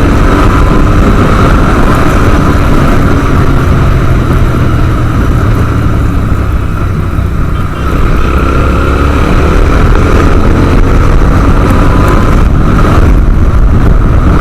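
Motorcycle being ridden, its engine note mixed with heavy wind rush on the microphone. The engine pitch drops briefly about eight seconds in, then climbs again.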